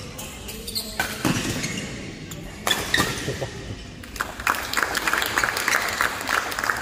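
Badminton rackets striking a shuttlecock in a large sports hall, with sharp hits about a second in and near the three-second mark. From about four seconds a run of quick, lighter clicks and squeaks follows, from shoes on the court mat and play on neighbouring courts.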